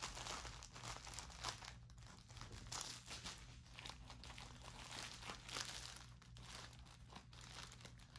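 A plastic storage bag crinkling and rustling as it is handled and packed away, in short irregular crinkles.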